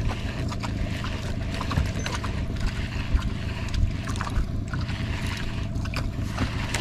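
Steady low engine hum of a small outrigger fishing boat, with wind and water noise and scattered light clicks and knocks.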